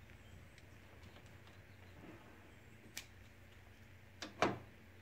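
Steel lathe parts handled by hand: a light metallic click about three seconds in, then two clunks in quick succession near the end as the quick-change tool post is set down on the lathe bed.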